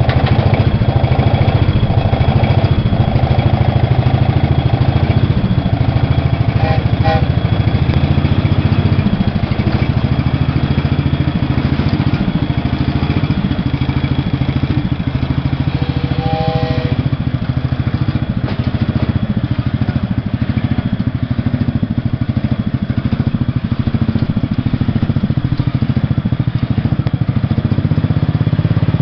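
Cub Cadet lawn-tractor engine running steadily, powering a homemade trackless train as it pulls its cars along. The engine note eases slightly partway through and picks up again near the end.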